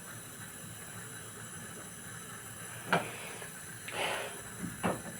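Gas stove burner hissing faintly and steadily. A sharp knock comes about three seconds in, followed by a short scrape and another knock near the end.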